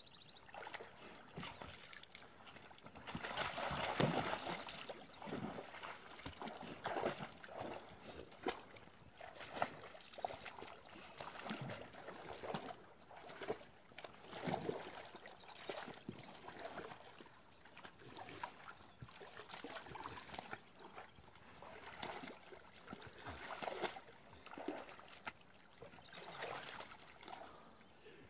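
A dog splashing and sloshing through shallow water as it digs at a beaver lodge. The splashes come irregularly, with the loudest burst about four seconds in.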